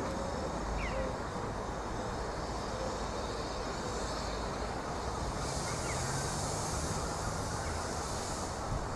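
A 15-inch-gauge 4-6-2 Pacific steam locomotive runs steadily along the track away from the listener. A hiss rises for about three seconds past the middle.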